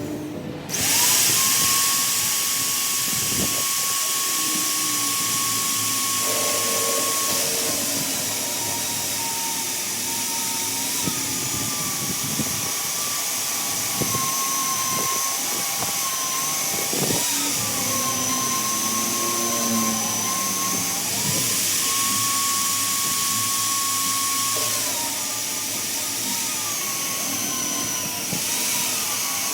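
Electric power tool running on metal, starting about a second in: a high motor whine that repeatedly sags in pitch and recovers as the tool is pressed into the work and eased off.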